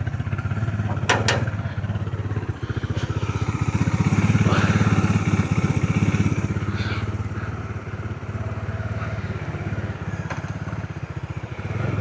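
Bajaj Dominar 400's single-cylinder engine running with a steady, fast pulsing beat, growing louder for a few seconds from about four seconds in. A sharp click sounds about a second in.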